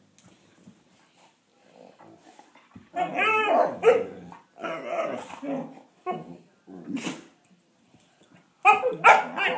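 Two Weimaraners play-fighting, growling and barking at each other in several short bursts, loudest about three seconds in and again near the end.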